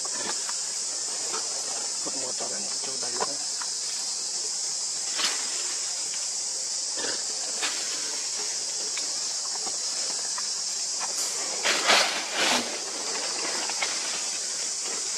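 Steady high-pitched drone of insects, with a few short sharp sounds scattered through it and a louder cluster of them about twelve seconds in.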